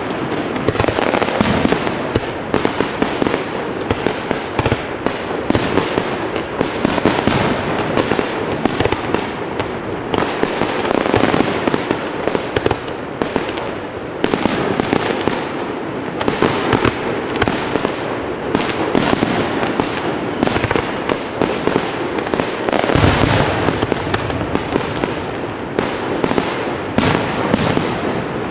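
Aerial fireworks going off in a dense, continuous barrage of bangs and crackling bursts, shell after shell with no pause.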